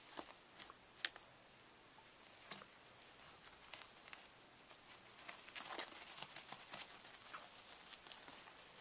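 Chihuahua puppies' paws scrabbling and skittering on a crinkly disposable puppy pad as they wrestle: scattered light scratches, ticks and crinkles. There is one sharp click about a second in, and the scrabbling is busiest from about five and a half to seven seconds in.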